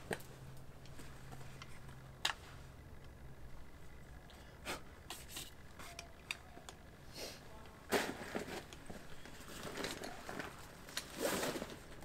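Handling and footstep noises on a gritty rock floor: scattered clicks, scrapes and rustles. The loudest is a longer rustle near the end as a backpack is lifted.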